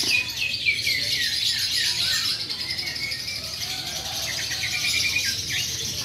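Many caged songbirds singing at once in a dense, high chatter. One bird repeats a downward-sliding chirp about four times a second during the first two seconds, and a quick run of short notes comes near the end.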